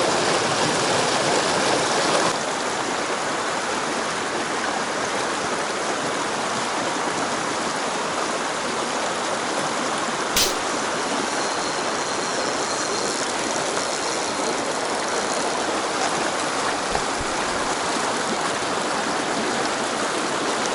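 Mountain stream water rushing steadily over rocks, with one sharp click about halfway through.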